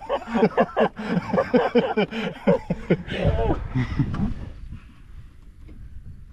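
A man's voice talking indistinctly for the first four seconds or so, then only a quieter low background noise.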